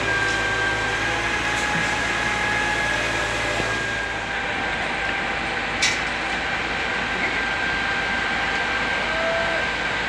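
Steady construction-site noise: a dense even hiss with a faint steady high whine, and one sharp click a little before six seconds in.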